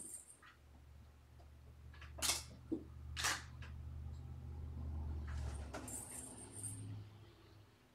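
DSLR camera shutter firing: two sharp clicks about a second apart, with a few fainter clicks around them. Underneath runs a low steady hum that fades near the end.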